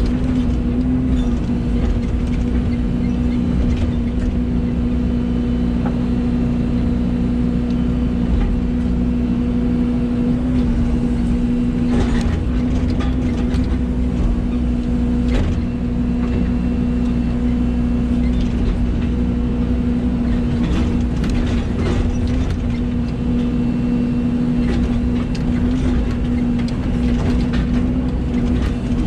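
Excavator's diesel engine running at a steady speed with a constant drone while it works, with several sharp clanks from the machine a few times along the way.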